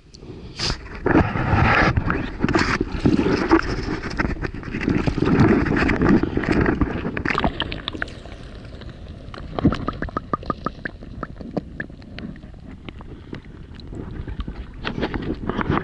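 Water sloshing and splashing around the angler's hands as a large brown trout is held in the shallows and released, busiest over the first several seconds. In the middle stretch the water sounds muffled, with quick clicks, as if heard from under the surface.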